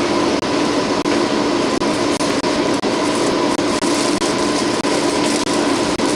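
Loud steady hiss with a steady hum in it, broken by a few brief dropouts.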